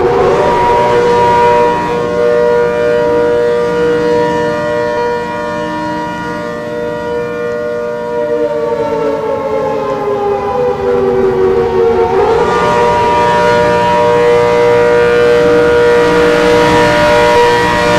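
ACA Hurricane civil defense warning siren sounding loudly in a steady two-note chord. About two-thirds of the way through, its pitch sags for several seconds, then climbs quickly back to the steady tone.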